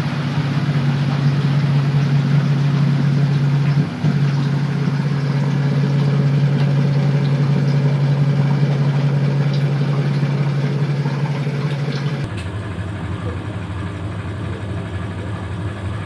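Whirlpool fully automatic top-load washing machine in its spin cycle: a steady motor hum with a brief break about four seconds in. About twelve seconds in the hum cuts off as the spin ends, leaving a quieter whir of the drum still turning.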